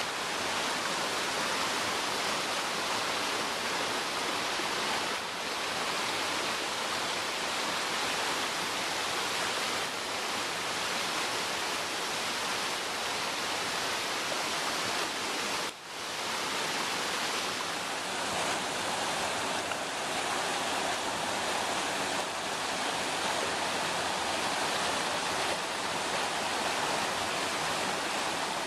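A mountain stream and waterfall give a steady rush of water over rocks. The rush drops out for a moment about halfway, then carries on.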